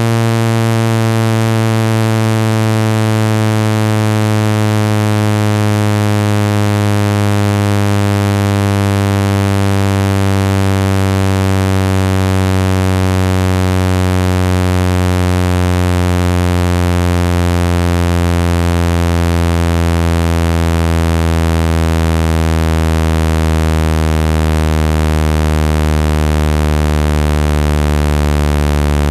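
Loud electronic low buzzing tone, rich in overtones, its pitch sinking slowly and steadily. It is a speaker-cleaning tone, played to vibrate water out of a phone speaker.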